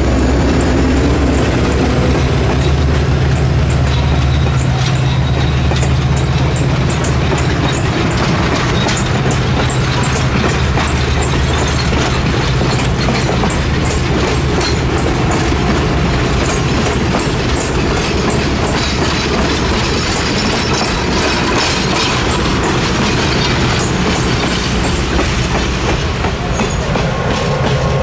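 A diesel-hauled passenger train passing close by. First comes the low, steady drone of the EMD GP35 and F7 locomotives, then the passenger coaches rolling past with a run of wheel clicks over the rail joints.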